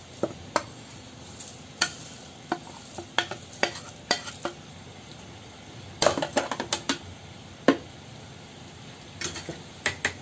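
A metal spoon clinking and scraping against a steel mixer-grinder jar as sugar and cornflour are spooned in. The clicks come irregularly, with a quick run of clinks about six seconds in and a few more near the end.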